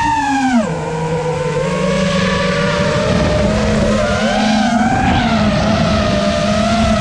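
FPV racing drone's brushless motors and propellers whining. The pitch drops sharply just under a second in, then wavers up and down with the throttle.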